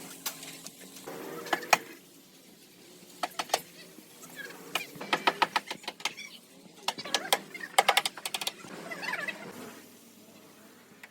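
Irregular sharp clicks and short, quick rattling runs of clicks from mechanical parts.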